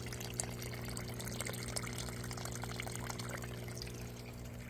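Water flowing and trickling in an aquaponics tank system, a steady splashing patter with small drips. Under it runs a steady low hum.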